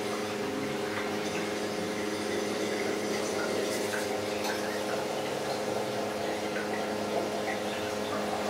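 Reef aquarium equipment running: a steady multi-tone hum of water pumps, with water trickling and bubbling over it.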